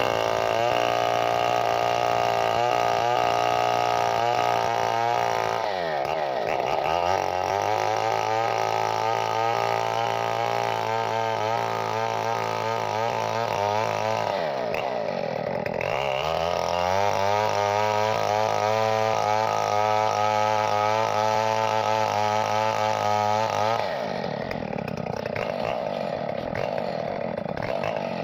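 Two-stroke chainsaw running at high revs. Its pitch sags and recovers twice, about six and fourteen seconds in, and near the end it settles to a lower, quieter note.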